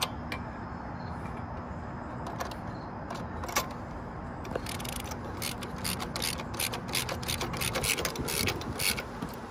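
Ratchet wrench with a socket extension clicking as bolts are tightened down. There are a few scattered clicks at first, then quick runs of clicks through the second half.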